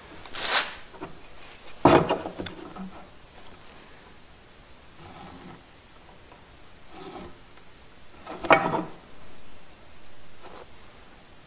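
Short scrapes and rubs of handling on a cedar split rail, about six separate strokes at uneven intervals, with two louder scrapes about two seconds in and again about three-quarters of the way through.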